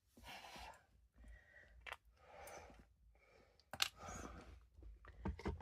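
Faint handling noises: soft rustles of packaging, with a few light clicks and taps.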